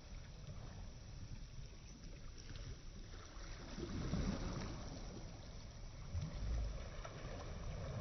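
Small waves lapping and washing onto a sandy shore, with wind rumbling on the microphone.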